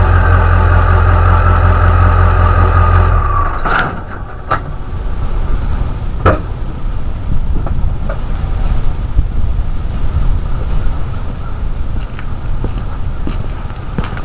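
Ford 7.3 L Power Stroke turbodiesel V8 running with its turbocharger whistle sliding slightly down in pitch, then the engine stops abruptly about three and a half seconds in. Afterwards only a steady noise with scattered clicks and knocks remains.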